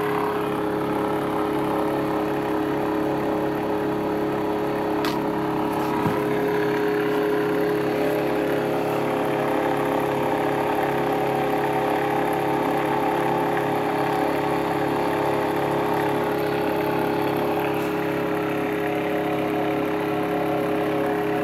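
Bedini-style pulse motor driving a small AC generator, running steadily with a whir and humming tones over a fast, regular pulsing. Two brief clicks come about five and six seconds in.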